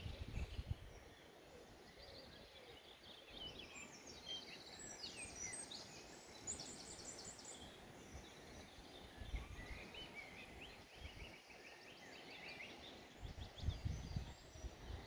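Small songbirds singing: several overlapping chirps, trills and quick note series over a faint background hiss, with a low rumble near the end.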